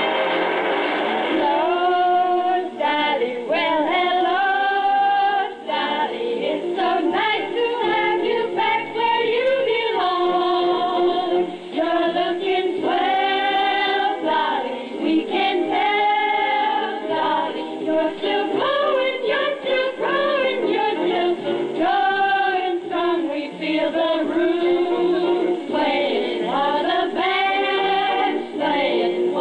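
A group of women singing a song together with instrumental accompaniment. The voices come in about a second and a half in, after a short instrumental lead-in.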